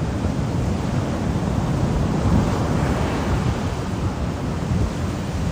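Hurricane surf and strong wind: a steady, dense rush of breaking waves, with wind rumbling on the microphone.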